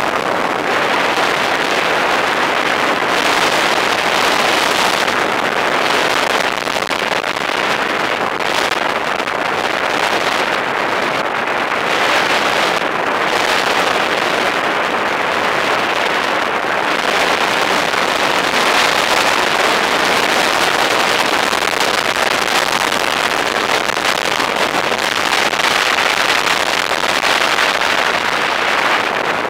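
Steady rush of airflow over a paraglider pilot's camera microphone in flight, an even loud hiss that dips briefly in its upper range now and then.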